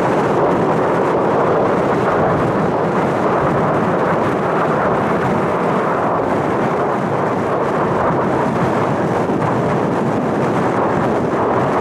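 Loud, steady rush of wind noise buffeting the microphone.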